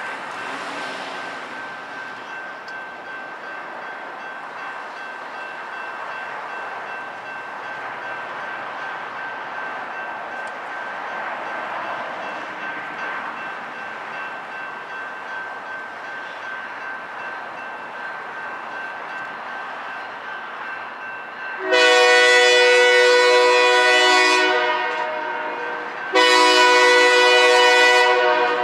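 Richmond Pacific Knoxville Locomotive Works SE15B diesel locomotive moving slowly with a low rumble and a faint steady whine, then sounding two long horn blasts near the end as it reaches a grade crossing.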